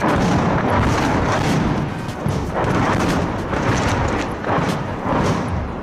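A close explosion goes off at the start, sending shrapnel flying, followed by further loud bangs and rumbling.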